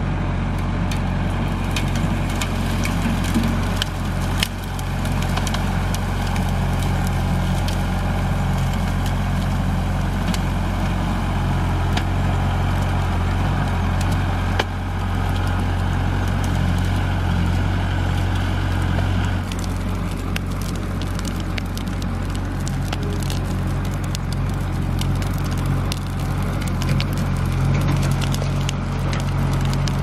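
Compact tractor's engine running steadily as its front loader pushes a brush pile, with dry branches snapping and cracking throughout.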